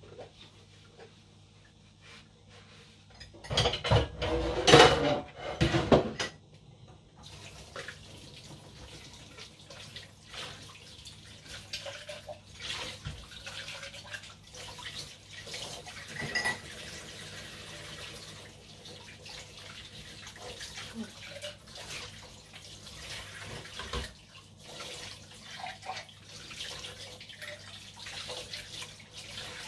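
Dishes being washed by hand at a kitchen sink: a loud clatter of crockery about four seconds in, then the tap running steadily with the odd clink of plates and cups.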